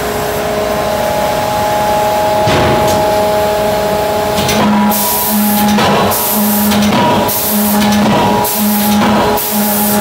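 Anyang 5 kJ CNC hydraulic die-forging hammer at work on hot metal: a steady machine hum with several tones. From about halfway it goes into a repeating cycle, about once a second, of hissing bursts alternating with a low hum, broken by several sharp knocks as the hammer strikes.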